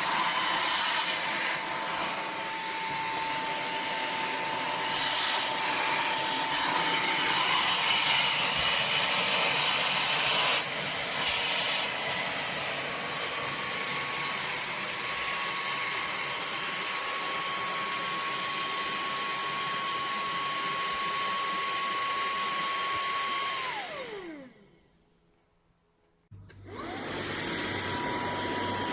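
TANYO cordless handheld vacuum cleaner's motor running with a steady whine. It steps up to a higher pitch about a third of the way in, winds down to silence with a falling tone near the end, and starts up again about two seconds later.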